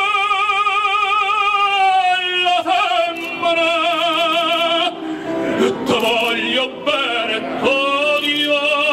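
A man singing into a microphone with wide vibrato over instrumental accompaniment. He holds long notes, with a quicker run of moving notes about two thirds of the way through before settling on another held note.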